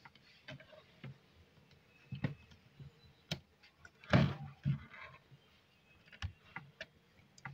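Light clicks and scrapes of a small screwdriver and fingers working at the carbon-brush holder of a blender's universal motor, with a louder knock about four seconds in.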